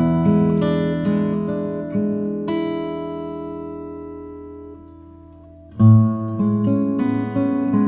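Background music played on acoustic guitar: picked notes, then a chord left ringing and slowly fading, and a loud strum starts the pattern again about six seconds in.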